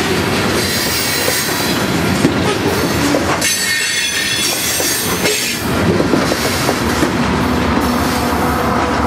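Coal cars of a freight train rolling past, their steel wheels rumbling and clacking on the rails, with a high wheel squeal about halfway through. Near the end a steady hum sets in as the rear diesel locomotive, pushing at the tail of the train, comes by.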